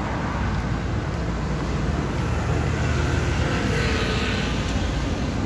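Street traffic: the steady engine rumble and road noise of passing vehicles.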